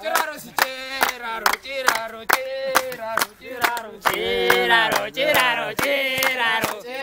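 A group of people clapping in unison to a steady beat, about two claps a second, while their voices sing and chant along.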